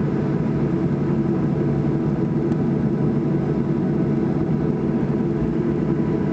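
Boeing 737-800's CFM56 engines and airflow heard inside the passenger cabin as a steady, even drone with a few steady hums in it, just after landing.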